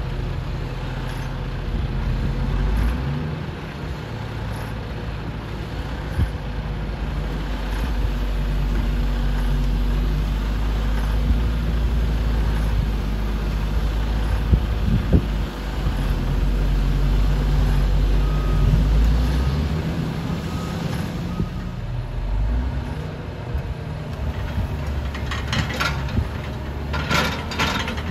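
Heavy diesel engines of a log loader and a log truck running, the engine note shifting as the loader lifts a bundle of logs off the truck. A cluster of sharp clanks and knocks comes near the end.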